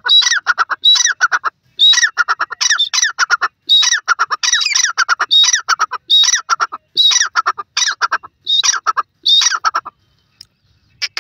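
Grey francolin calling: a fast, loud series of repeated phrases, each a high note followed by a quick run of lower notes, stopping near the end.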